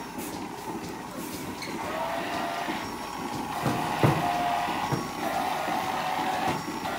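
Milking parlour machinery running with a steady mechanical din, and a sharp knock about four seconds in and another a second later.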